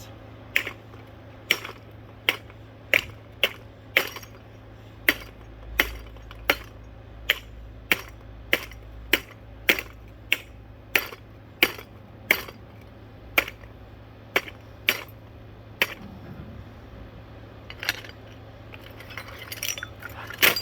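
A ceiling fan being struck over and over: sharp metallic and glassy clanks, roughly one or two a second at an uneven pace, stopping about 16 seconds in, followed by lighter clattering near the end.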